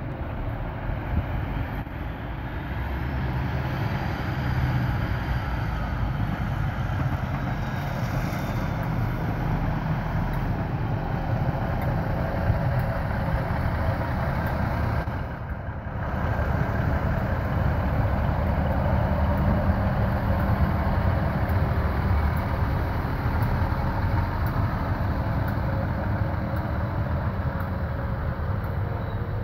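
Diesel multiple unit trains passing: a Class 156 Super Sprinter's underfloor diesel engines running steadily as it goes by, with wheel and rail noise. There is a brief break about halfway, then another unit passes close by with the same steady diesel rumble.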